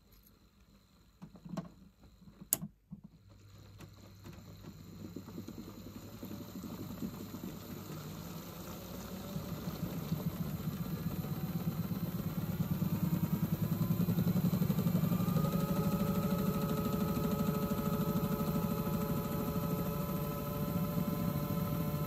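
Toy washing machine's small drum motor starting up after a couple of clicks, then running with rising pitch as the water-filled drum speeds up, steadying about two-thirds of the way in, during the cool-down phase of its wash program.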